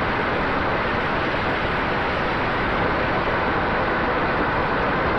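Steady rushing wind noise on the microphone with a faint steady whine running through it.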